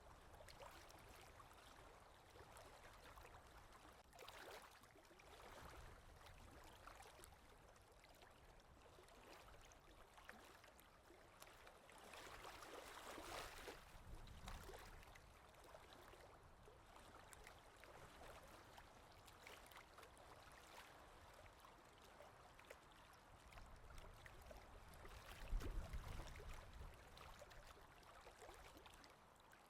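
Near silence with faint, irregular scratching and rubbing of oil pastels on paper, and a brief low thud near the end.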